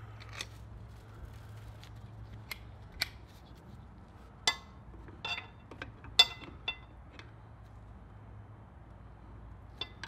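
Scattered sharp metallic clicks and clinks of metal parts being handled at a motorcycle's rear brake caliper while its pistons are pushed back. Two of the clinks ring briefly, the loudest a little past the middle.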